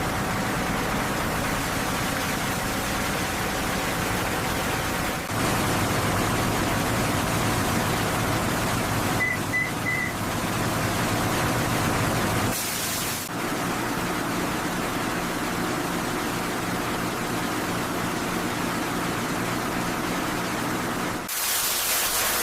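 Steady rushing noise with a low hum underneath, changing character abruptly a few times.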